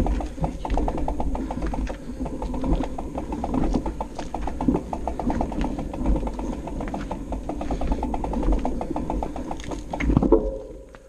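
Mountain bike rear freehub ratchet clicking rapidly and evenly as the wheel turns without pedalling, over a low rumble; the clicking stops about ten seconds in.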